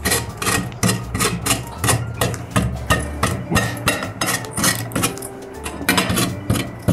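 Raw potato being grated on a metal box grater: quick rasping strokes, about three a second, over background music.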